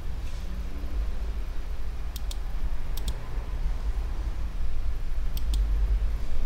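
Computer mouse clicking three times, each click a quick double snap, over a steady low hum.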